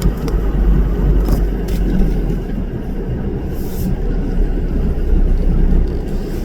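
Car driving along: a steady low rumble of engine and road noise, with a few light clicks and rattles.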